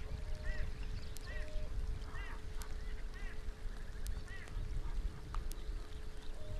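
Rain falling, with a steady low rumble and sharp ticks every second or so from drops striking the camera. A bird calls over it, a short arched call repeated about once a second, six times, stopping after about four and a half seconds.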